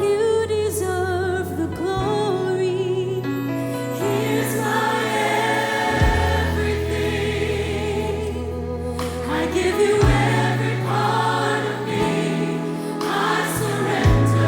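Gospel choir singing a slow song with band accompaniment: long-held bass notes that change every few seconds and a few soft percussion hits.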